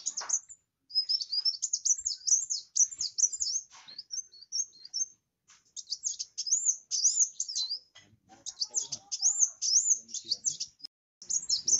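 Kolibri wulung, a sunbird, singing a rapid, high-pitched twittering song in bursts broken by brief pauses.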